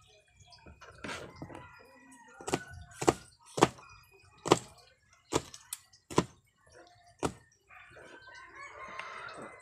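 Kitchen knife chopping garlic cloves on a plastic cutting board: about nine sharp knocks at an uneven pace. A drawn-out call sounds in the background near the end.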